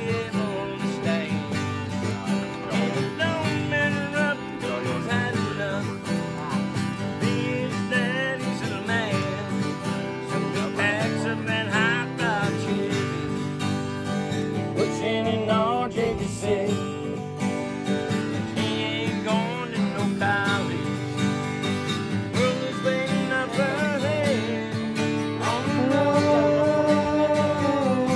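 Live country band playing an instrumental break between sung verses: strummed acoustic guitar under a lead melody of bent, wavering notes. Held notes near the end lead back toward the verse.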